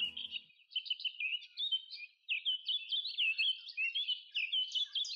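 Small birds chirping: a quick, dense string of short high twittering notes, several a second, with a brief lull about two seconds in.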